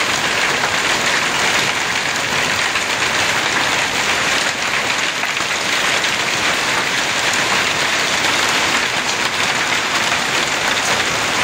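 Heavy rain mixed with hail pelting down on a wooden deck and lawn: a dense, steady hiss with no let-up.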